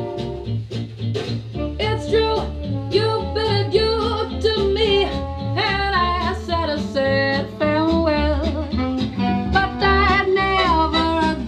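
Swing-style jazz song playing: a band with a steady beat and a singer.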